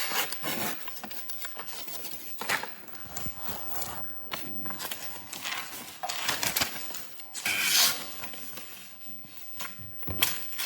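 High-carbon steel gyuto chef's knife making a series of slicing cuts: irregular scraping strokes of uneven length, the loudest about eight seconds in.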